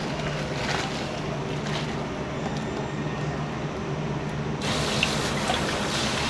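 Steady rush of water in a kitchen. About four and a half seconds in it gives way to a pan of sliced bamboo shoots (menma) at a rolling boil, bubbling with a few small pops.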